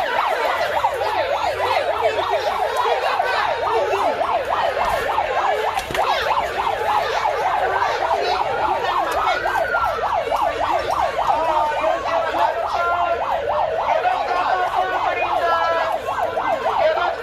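Several sirens sounding at once, fast yelping up-and-down tones overlapping each other, with a slower wailing rise and fall about halfway through.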